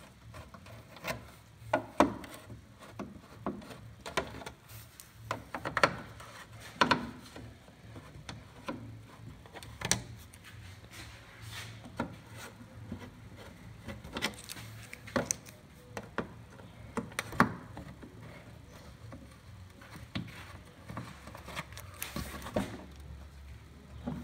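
A screwdriver working plastic push-in clips loose from a plastic trim panel: irregular clicks, taps and short scrapes of metal on plastic.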